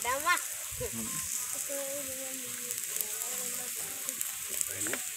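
Ram ribs sizzling on a hot perforated metal grill plate: a steady hiss with scattered small crackles.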